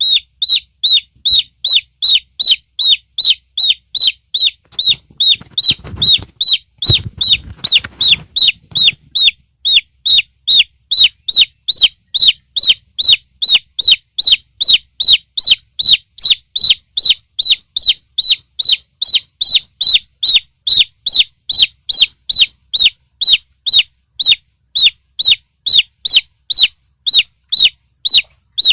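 Domestic chick peeping loudly and insistently: short, high, falling peeps repeated evenly, about two and a half a second.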